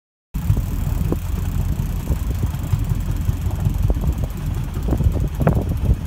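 Steady low rumble of a boat engine running, with wind buffeting the microphone; it starts abruptly a moment in.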